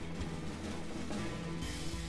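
Background music with drums.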